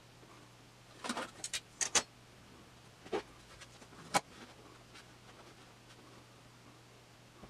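Sharp clicks and metallic clinks from handling a rule and a metal Lazy Susan bearing plate on a plywood box top: a quick cluster about a second in, then single knocks a little after three and four seconds.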